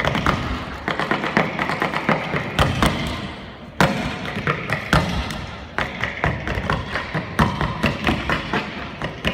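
Tap shoes striking a stage floor in fast, irregular runs of taps and stamps. The taps ease off briefly about three and a half seconds in, then start again with a loud stamp.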